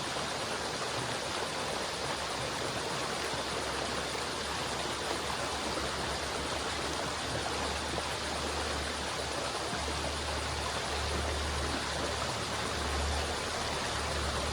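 Steady rushing of a flowing river, an even wash of water noise, with a low rumble coming up underneath in the second half.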